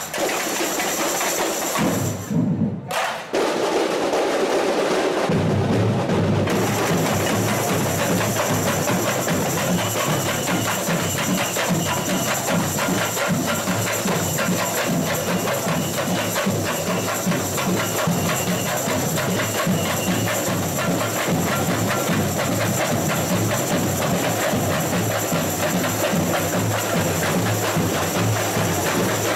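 A samba school bateria playing a fast, steady samba rhythm: many tamborims struck with sticks over snare and bass drums. There is a short break about three seconds in, after which the whole section plays on without a stop.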